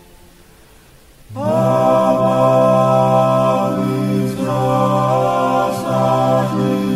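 Background music: a sustained, chant-like vocal piece of long held notes. It enters about a second in after a short lull, and its pitches shift a couple of times.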